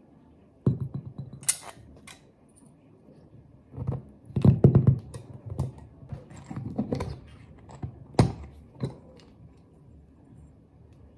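Irregular knocks, clicks and clatter of objects being handled, with the loudest cluster about four to five seconds in and a sharp knock near eight seconds in.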